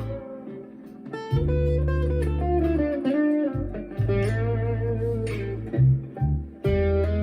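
Harley Benton ST-Acoustic guitar played through a Behringer vintage overdrive pedal into a Marshall MG15CFX amp. It plays held notes and chords with wavering, vibrato-like notes. There is a brief drop in level about a second in, and short breaks between phrases.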